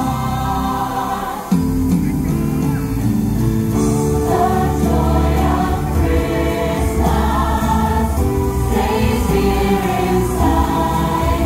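Christmas show music: a choir of voices singing over a band backing track with a steady bass. There is a brief drop and a sudden restart about a second and a half in.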